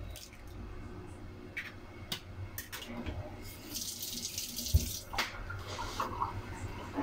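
A few light clicks as an eggshell is broken apart, then a kitchen tap runs briefly into a stainless steel sink for about a second and a half, near the middle.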